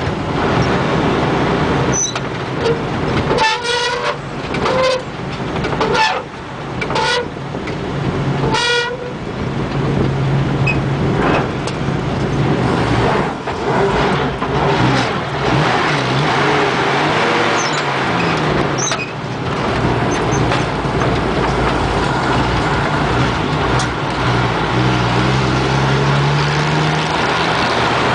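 An old truck's engine drones steadily in the cab while driving, with several short horn toots in the first nine seconds. Near the end the engine's pitch rises as it speeds up.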